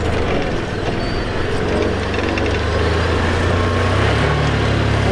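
Chevrolet Colorado pickup's engine running at low revs as the truck crawls over a rutted sandy trail, with a steady low drone. The revs rise a little about four seconds in.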